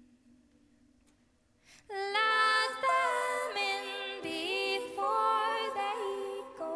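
A woman's solo singing voice carrying a melody with sliding, wavering notes. It comes in about two seconds in, after a faint held low note.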